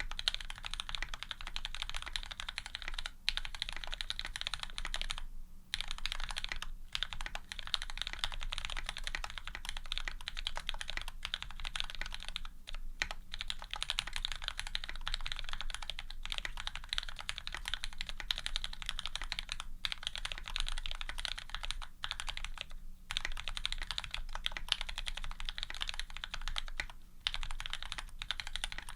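Continuous typing on a Serratus custom mechanical keyboard with lubed Cherry Retooled Black linear switches, an aluminium plate and GMK keycaps: a dense stream of keystrokes, broken by a few short pauses.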